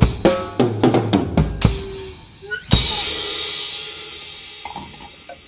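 Drum kit played as cartoon sound effects: a quick run of drum hits, then about three seconds in a cymbal crash that rings and slowly fades.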